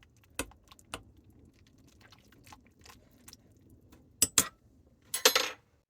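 Scattered light clicks and knocks of kitchen utensils and dishes being handled, with two sharper clacks about four seconds in and a short scraping rasp just after five seconds.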